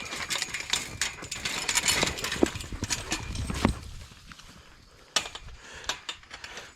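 Clatter and scuffling of a pack of wolfdogs and German shepherds rushing in to get at deer carcasses, a dense run of quick clicks and knocks for about four seconds that then thins to a few sharp clicks.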